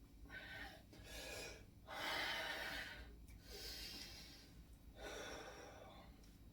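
A man breathing hard in and out with the effort of bicep curls. There are about five loud breaths, the strongest about two seconds in.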